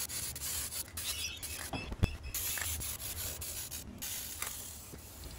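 Aerosol spray can hissing in bursts as primer is sprayed onto a plastic car centre console, with short breaks between passes and one sharp knock about two seconds in.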